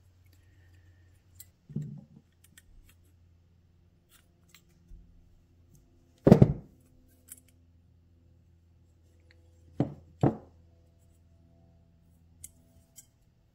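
Metal carburetor parts and pliers being handled on a workbench, giving a few sharp knocks and clinks. The loudest comes about six seconds in and two more fall close together near ten seconds, over a faint steady low hum.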